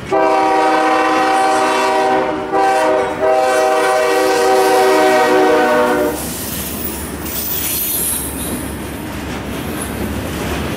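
CSX freight locomotive's air horn sounding a chord: a long blast, a short one and another long one, stopping about six seconds in. The intermodal train's rumble and wheel noise go on underneath and carry on after the horn stops.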